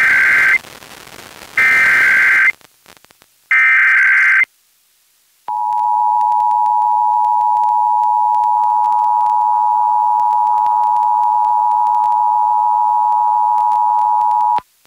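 Emergency Alert System broadcast: three short bursts of the raspy digital SAME header, each about a second long, encoding the required monthly test. After a short gap comes the steady two-tone EAS attention signal, about nine seconds long, which warns that an alert message follows.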